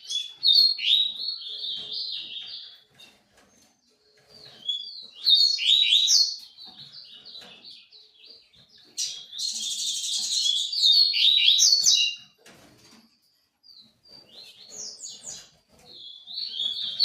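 A songbird singing in bursts of rapid, high chirping notes. There are four phrases, each lasting two to three seconds with short pauses between them, and the third has a buzzy, rattling stretch.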